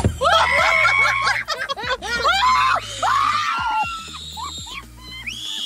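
A girl screaming repeatedly in fright, ending in one long high shriek near the end, as a Muscovy duck flaps up against her car window.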